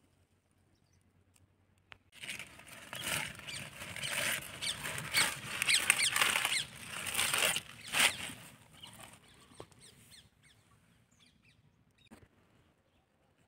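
Spinach leaves rustling and crackling as a hand grabs and works through a bunch of them, a dense run of quick crisp crackles starting about two seconds in and fading out after about nine seconds.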